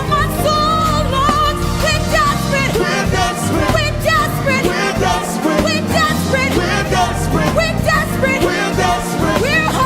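Gospel praise and worship music played live by a band, with strong bass and steady drums under a melodic line that bends and slides like sung vocal runs.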